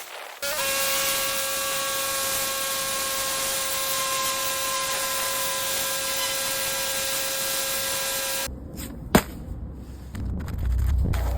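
Pressure washer spraying with a steady loud hiss and a steady pump whine, which cut off abruptly about eight seconds in; a sharp click follows, then a low rumble.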